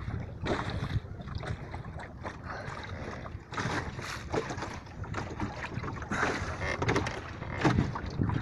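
Small wooden sailing dinghy under way in a breeze: wind buffeting the microphone, with water splashing irregularly against the hull.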